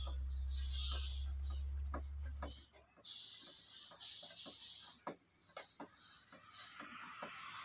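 Irregular light clicks and taps of a hand tool working on the radiator's metal fittings, over a low steady hum that cuts off about two and a half seconds in.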